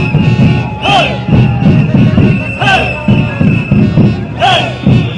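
Street protest crowd with drums beating a steady rhythm and a loud call rising and falling about every two seconds, over a steady high whistle-like tone.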